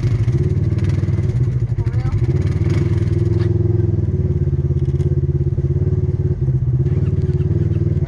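Four-wheeler (ATV) engine running steadily while under way, an even low drone.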